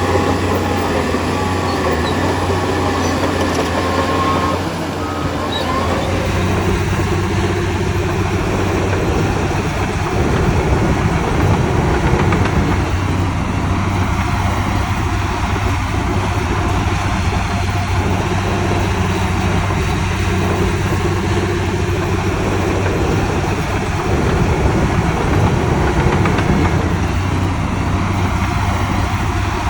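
Heavy diesel engine of earthmoving machinery running steadily, growing louder for a few seconds twice.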